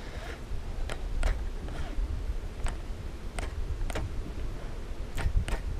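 Fishing rod and reel giving scattered sharp clicks, about seven, while a musky twitchbait is jerked back through the water, over a steady low rumble of wind on the microphone.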